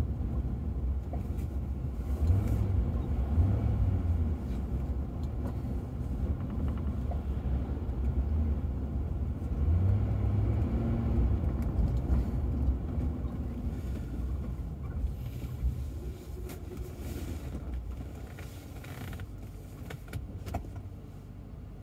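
Low road and engine rumble inside a moving Ford Crown Victoria, easing off as the car slows to a stop near the end.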